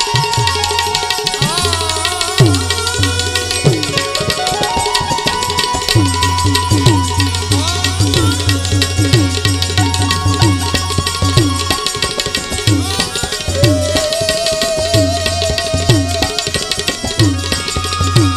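Tabla playing a driving rhythm, the bass drum's strokes sliding down in pitch, over a harmonium melody and a low steady drone. It is an instrumental passage of a Gujarati devotional bhajan with no singing.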